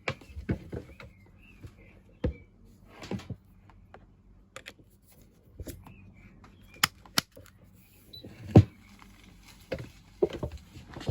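Scattered clicks and knocks at irregular intervals, the loudest a single thump about eight and a half seconds in, with faint chirping in the first couple of seconds.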